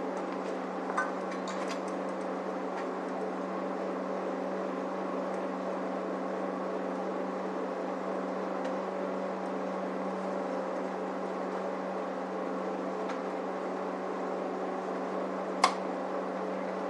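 A steady machine hum at one constant pitch with an even rattling texture, and a single sharp click near the end.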